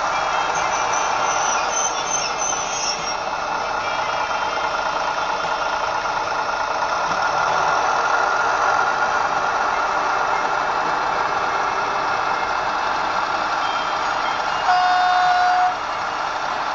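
ESU LokSound decoder in an N-scale JinYing rail car model playing a steady diesel engine sound through its small speaker, with a single horn note about a second long near the end.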